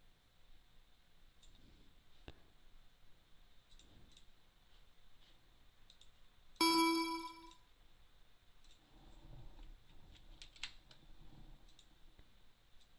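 Scattered computer mouse clicks. About halfway through, a computer alert chime rings once and fades within a second.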